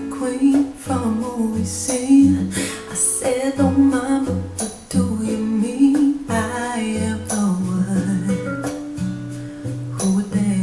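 Music: a song with singing over plucked guitar and a pulsing bass line.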